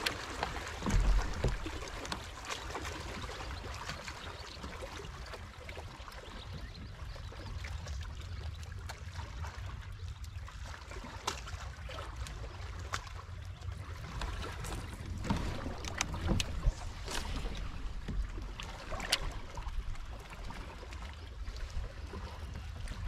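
Water lapping around a fishing kayak's hull, over a steady low wind rumble. Scattered small clicks and knocks run through it, the loudest about a second in.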